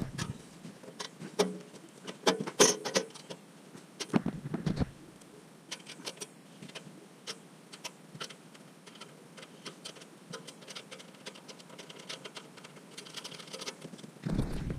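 Scattered metallic clicks, taps and knocks of hand work on a steel skid plate under a car: tools and bolts being handled while refitting the plate, with a few heavier knocks between about two and five seconds in.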